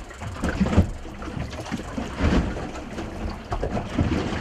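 Water slapping and lapping against a small boat's hull, with wind on the microphone and a few irregular dull knocks.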